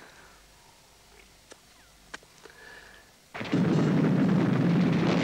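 A few seconds of near quiet with faint clicks, then about three seconds in a sudden loud din of battle: rapid gunfire and blasts.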